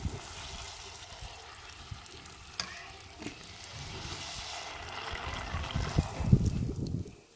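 Golgappa puris sizzling as they fry in hot oil, a steady high hiss. Several dull low knocks come toward the end, the loudest about six seconds in, and the sizzle drops away just before the end.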